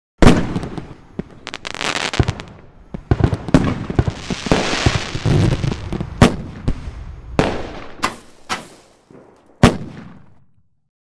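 Fireworks bursting: a rapid series of sharp bangs with crackling between them, starting suddenly and ending with a loud bang about ten seconds in that dies away.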